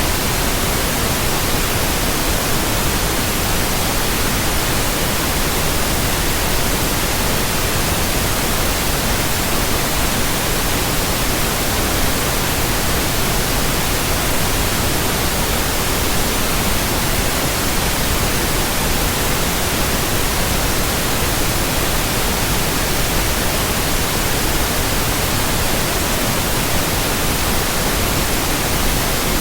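Steady, even hiss of synthetic white noise, unchanging throughout.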